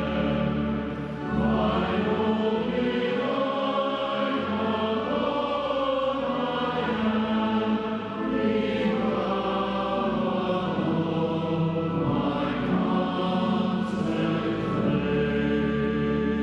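A choir singing a hymn in slow, held chords.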